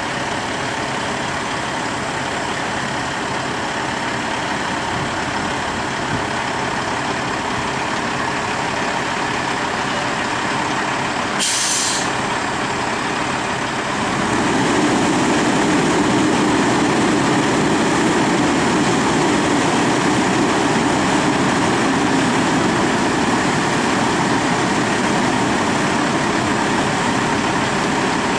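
Heavy truck diesel engine running steadily, with a short hiss of air about eleven and a half seconds in. About fourteen seconds in the engine gets louder and stays so.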